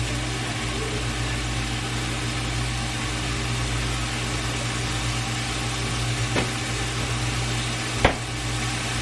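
A steady low hum with an even hiss, broken by two short knocks, the first about six seconds in and the second about two seconds later.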